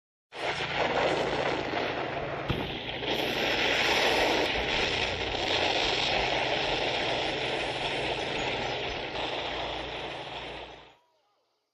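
A steady, engine-like rush of noise with a low hum underneath, fading out near the end.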